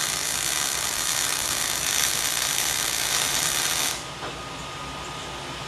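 MIG welding arc running with a steady hiss and crackle as the wire feeds, laying a fillet weld bead. It cuts off abruptly about four seconds in, as the welder releases the trigger.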